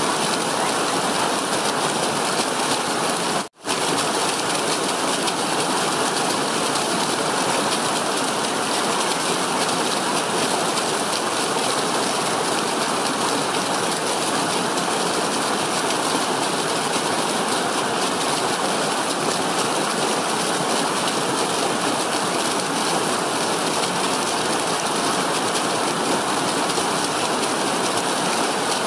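Small stream cascading steeply over rocks down a grassy bank: a steady rushing and splashing of water, which drops out for a split second about three and a half seconds in.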